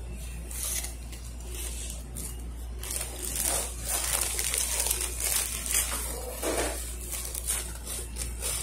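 Paper food wrapper crinkling and rustling as it is unfolded by hand, in irregular crackles that get busier about three seconds in.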